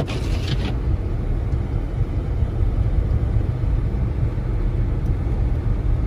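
Steady low rumble of a car's engine and tyres on a snow-covered road, heard from inside the cabin. A windshield wiper swish fades out within the first second.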